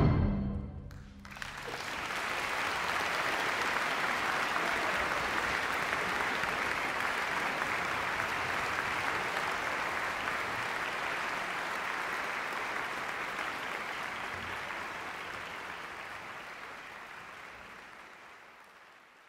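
Concert-hall audience applauding steadily as a wind band's loud final chord dies away in the first second; the applause fades out gradually near the end.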